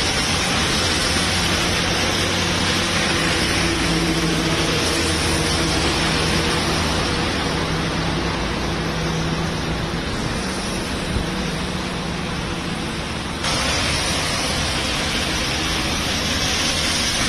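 Heavy rain pouring steadily onto a road, a loud even hiss, with the low hum of traffic engines under it. About 13 seconds in the rain noise turns slightly louder and brighter.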